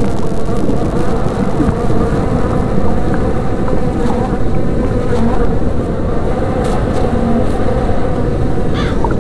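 Loud, steady, dense buzzing of a mass of honey bees, with a couple of brief higher squeaks near the end.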